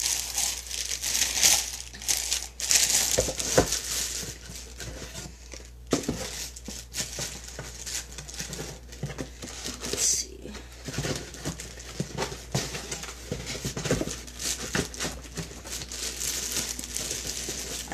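Clear plastic wrapping crinkling and rustling in irregular handfuls, with cardboard box flaps knocking and scraping, as a wax warmer is packed back into its box.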